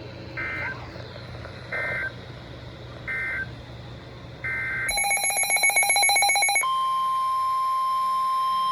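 NOAA Weather Radio alert sequence: four short warbling data bursts about a second and a half apart (the SAME header), then a rapid pulsing electronic buzz for under two seconds, then the steady 1050 Hz warning alarm tone from just past the middle on. The sequence announces a new warning being broadcast.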